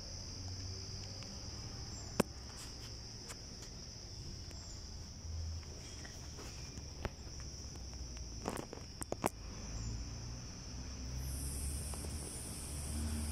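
Crickets chirring steadily in one high, even note, with a few sharp clicks about two seconds in and a short cluster of clicks around nine seconds. A steady high hiss sets in near the end.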